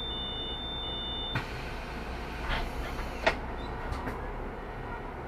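Inside a Solaris Urbino 18 articulated city bus: a steady low engine rumble. A high electronic beeping tone stops abruptly about a second in, followed by a few clunks, the loudest about three seconds in.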